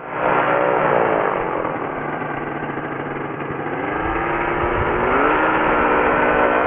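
Rotec Rally 2B ultralight's engine and propeller running as it taxis slowly. The revs drop over the first couple of seconds, then rise again about four to five seconds in and hold higher.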